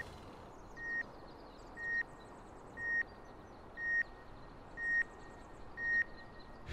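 An electronic beep at one steady high pitch, sounding about once a second, seven times in a row. Each beep swells up and cuts off sharply. Faint high twittering sounds between them.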